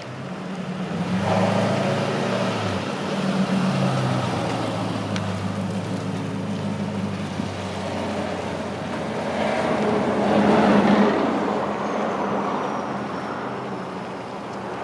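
1951 Ford F1 pickup with a Ford 4.6L three-valve V8 driving slowly at low speed. The engine note swells twice, loudest about ten seconds in as the truck comes round.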